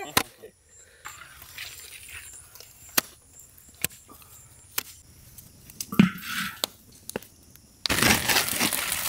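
A hand working a thick banana-and-wheat-flour batter in an aluminium bowl: scattered soft squelches and sharp clicks. About eight seconds in, it cuts abruptly to the loud, dense crackle of a wood fire burning.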